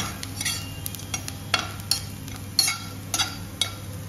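Metal slotted spatula stirring and scraping fried onions and spice powder around a stainless steel pan, in irregular strokes roughly every half second, over a light sizzle of frying.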